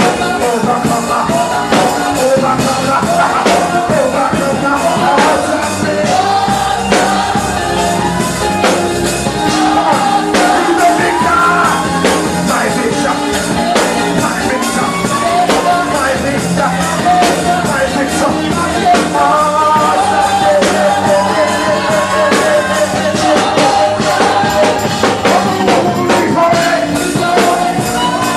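Live band playing an upbeat worship song, with singing over drums and a steady beat.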